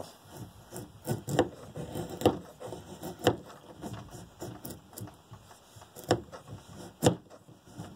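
Knife blade shaving curls off a stick of fatwood (resin-rich pine) to make tinder. It is a series of short, uneven scraping strokes, several of them sharp and loud.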